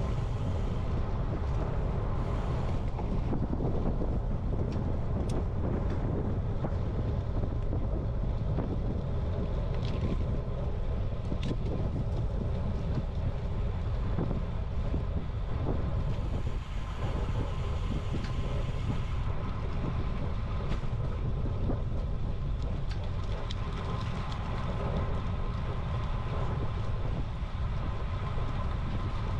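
Steady low wind rumble buffeting the microphone of a camera on a moving bicycle, over the hiss of tyres on pavement.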